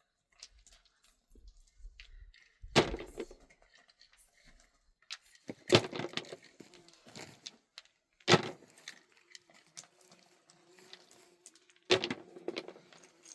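Four sharp knocks a few seconds apart, each leaving a short ringing tone after it.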